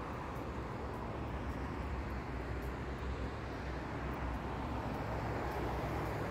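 Steady road traffic noise: a continuous low rumble of cars on a busy multi-lane road.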